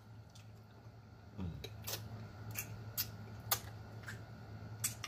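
Close-miked mouth sounds of eating: irregular wet smacks and sharp clicks, about one a second, from chewing and finger-licking, over a low steady hum.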